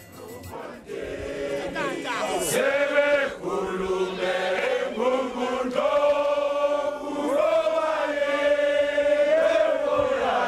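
A crowd of men singing together in a slow, chant-like song, swelling in over the first couple of seconds.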